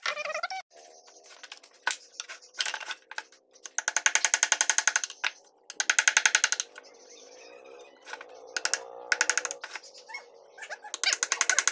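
Ball-peen hammer tapping a wood-carving chisel into wood in several quick runs of light, rapid strikes, with short pauses between the runs.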